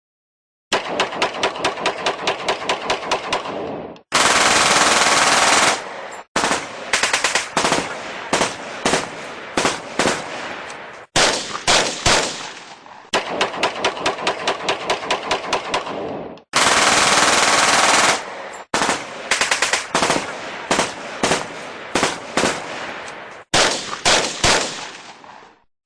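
Battle sound effect of gunfire: rapid machine-gun bursts, stretches of continuous heavy fire, and separate single rifle shots spaced about half a second apart. It starts after a moment of silence and the same sequence repeats about halfway through.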